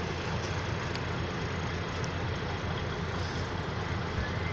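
Steady low rumble of idling vehicle engines.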